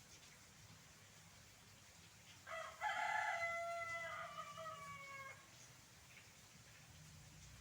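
A rooster crows once, starting about two and a half seconds in. The crow lasts about three seconds, with a short opening note and a long drawn-out note that falls at the end.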